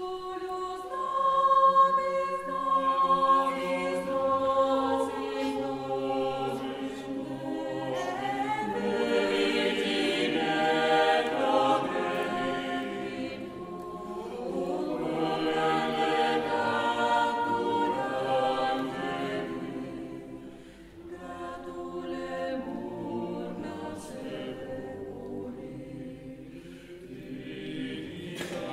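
Chamber choir singing a sacred Latin piece in sustained harmony, coming in out of near silence at the start, with a brief breath between phrases about two-thirds of the way through.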